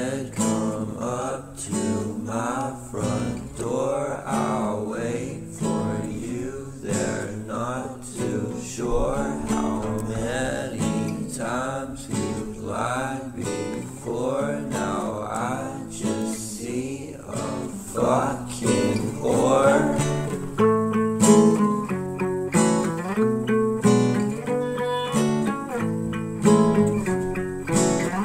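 Background music: a song led by plucked and strummed acoustic guitar.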